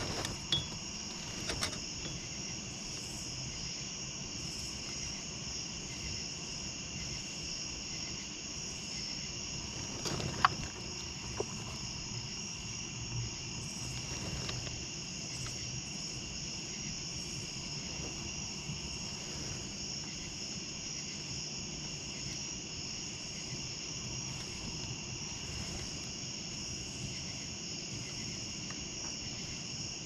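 Summer night chorus of insects: a steady shrill trilling with a faster regular pulsing call above it. A few sharp clicks from handling hook and tackle in a boat come through, the loudest about ten and a half seconds in.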